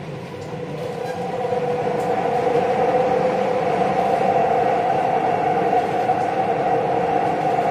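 Dubai Metro train running on its elevated track, heard from inside the carriage: a steady rumble with a two-note humming whine, growing louder over the first couple of seconds and then holding steady.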